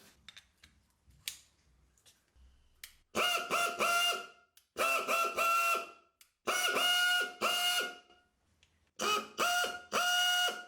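Restored pneumatic screwdriver running in four short bursts of about a second each, with a steady whine and a ratcheting clatter as each burst starts.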